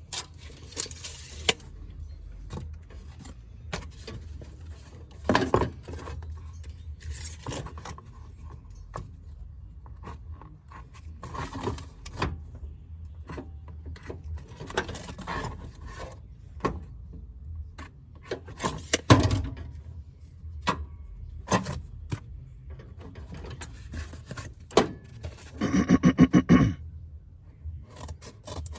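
Intermittent rubbing, scraping and clicking from hand work on a pattern for a floor-pan patch, over a steady low hum. A brief, louder rasping buzz comes near the end.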